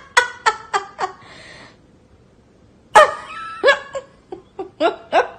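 A person laughing in quick short bursts, a pause of about two seconds, then a sudden loud burst of laughter followed by more quick laughs.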